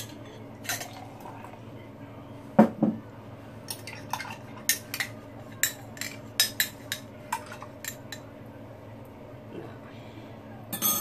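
A spoon clinking and scraping against the inside of a drinking glass as the last of the yeast mixture is rinsed out into a stainless steel bowl: a dozen or so irregular sharp clinks, the loudest about two and a half seconds in.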